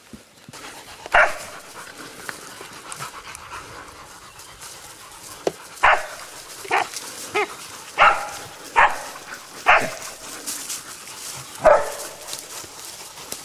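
Hunting dogs barking at a downed wild boar: short single barks, about eight of them, roughly one a second from about a second in.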